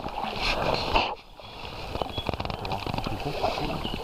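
Paddles dipping and pulling through calm river water beside an inflatable canoe, with small splashes and drips. There is a brief lull just after a second in.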